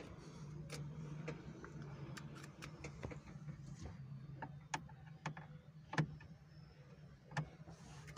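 Scattered light clicks and knocks from parts and hand tools being handled during work on a car, over a steady low hum.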